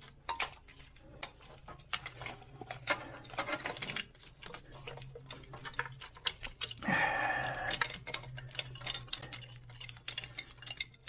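Irregular light clicks and rattles from hands working a wiring harness and its plastic connectors into place on the engine, with a short scraping rustle about seven seconds in. A faint steady low hum runs underneath.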